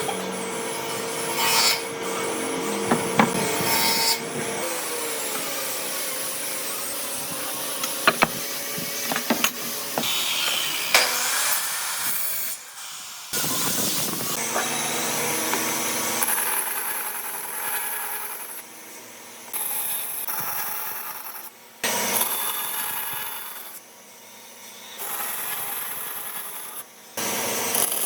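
Woodworking tools at work on wood: sawing and rubbing or sanding sounds with a power tool, broken by several abrupt changes and a few sharp knocks.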